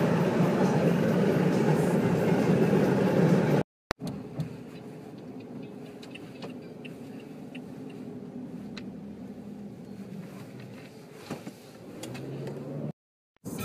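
Road and engine noise inside a car cabin at highway speed, a steady low rumble that stops abruptly a few seconds in at a cut. After the cut comes a much quieter steady car-interior hum with a few faint ticks as the car moves slowly.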